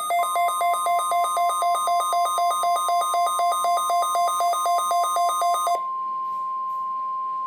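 Weather radio receiver's electronic alert alarm beeping rapidly, about four beeps a second alternating between two pitches, over the steady 1050 Hz NOAA Weather Radio warning alarm tone that signals the alert. The beeping stops about six seconds in, leaving the plain steady tone.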